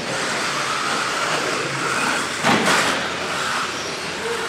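Radio-controlled 2WD short course trucks racing on a dirt track: a rising and falling electric-motor whine with the rush of tyres on dirt, and a sudden louder burst of noise about two and a half seconds in.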